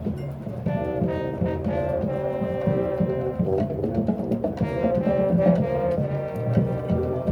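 High school marching band's brass section playing held chords that change about once a second.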